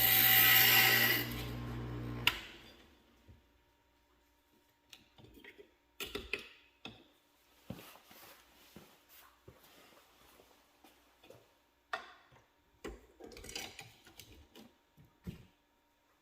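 Inland Wiz CG glass grinder running, its bit grinding the edge of a piece of glass for about a second over the steady motor hum. The motor is switched off about two seconds in, and scattered light clicks and knocks of parts being handled follow.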